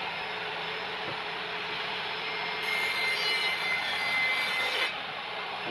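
Bench-mounted circular saw (table saw) running steadily. From about two and a half seconds in to about five seconds in, its blade cuts through an HPL laminate sheet, making the sound louder and brighter with a high whine and hiss.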